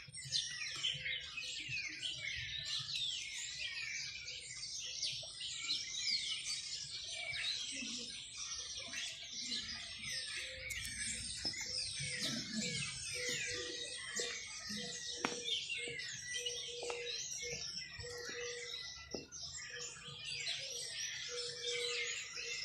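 Many small birds chirping and twittering together in a dense, continuous chorus.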